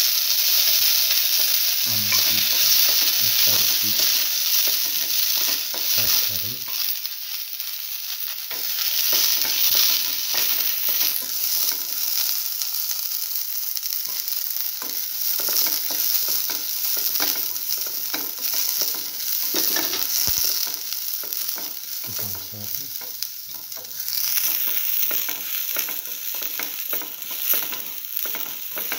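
Sliced shallots sizzling in hot oil in a metal frying pan, with a spatula scraping and tapping the pan as they are stirred and sautéed. The sizzle starts suddenly as the shallots go in.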